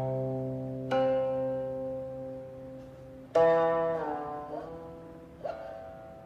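Slow, sparse five-tone healing music on a plucked string instrument: single notes struck a second or two apart, each ringing and slowly dying away, with one note bent downward in pitch about four seconds in.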